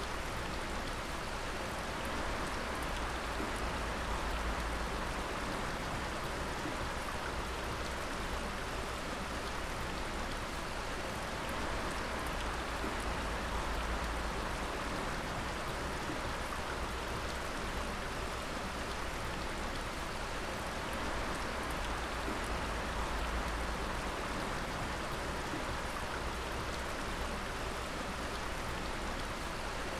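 Water dripping and splashing steadily, a dense patter of drops over a constant wash of water noise.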